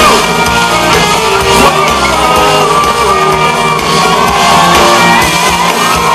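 Loud live country-rock band music through a club PA, with guitar, and voices shouting along from the crowd.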